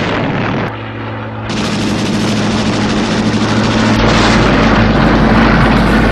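Loud recorded combat sound effect: dense noise of gunfire and battle with a steady engine drone underneath. It is cut abruptly into several spliced segments, with a deep low hum joining about four seconds in.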